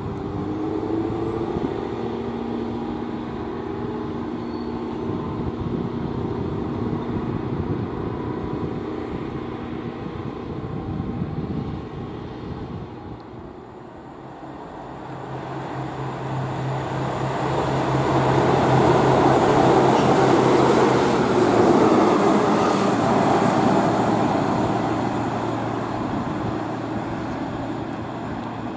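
Trains on the line through the station: steady engine or motor tones for the first ten seconds, then after a short lull a train passes with a rushing rumble and a low steady hum, loudest about twenty seconds in, then fading.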